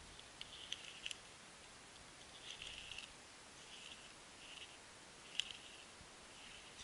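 Small raft-fishing reel being wound while a fish is played on a bent rod: faint scratchy clicking in short spurts every second or so, with one sharper click about five and a half seconds in.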